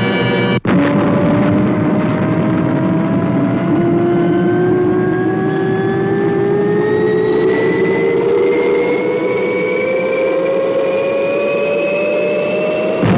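Spaceship engine sound effect, a rocket ship accelerating to take off: loud rushing noise with a whine that climbs steadily in pitch for about twelve seconds, starting abruptly about half a second in.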